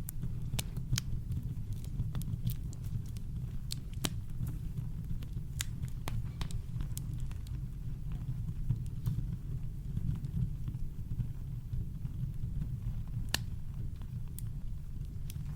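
Campfire crackling: scattered sharp pops and snaps, a few clearly louder than the rest, over a steady deep brown-noise rumble.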